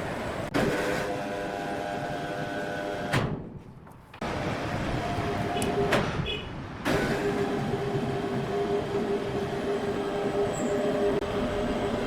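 Heavy sawmill machinery running, a steady noisy drone with a held hum. It drops out abruptly about three seconds in, returns a second later, and dips again around six to seven seconds.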